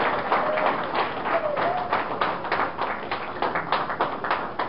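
Audience applauding, the clapping thinning out and fading away.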